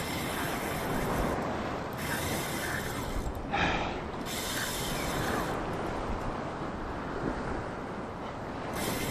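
Shimano Twin Power 14000 spinning reel working under the load of a hooked kingfish, cranked in bursts of about a second with short pauses between them.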